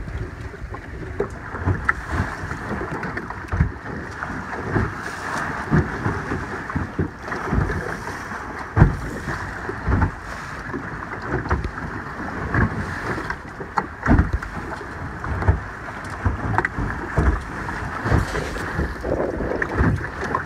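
Wind buffeting the microphone aboard a Lightning-class sailboat under way, with water rushing along the hull. Irregular low thumps come every second or so throughout.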